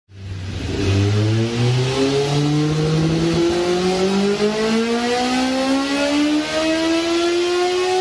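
Flat-plane-crank inline-four motorcycle engine accelerating, its note rising through the whole stretch, quickly at first and then more gradually.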